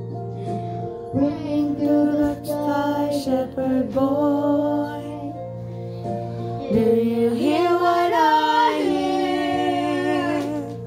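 Young girls singing a song into karaoke microphones over an instrumental backing track with sustained chords.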